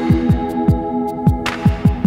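Electronic outro music: a deep kick drum thudding with pitch-dropping beats under held synth chords and ticking hi-hats, with a swell of noise about one and a half seconds in.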